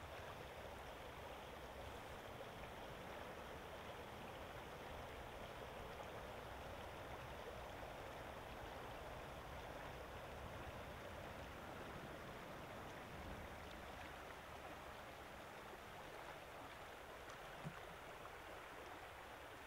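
Steady rushing of water over a shallow stream rapid.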